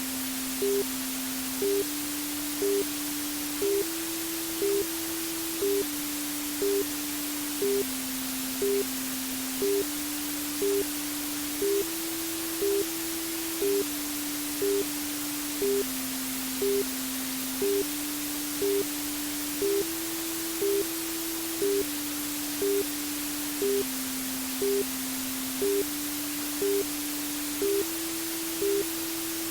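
Steady white noise hiss under a soft synthetic tune. A low held tone steps up and down between three pitches every two seconds, and a short higher tone pulses about once a second.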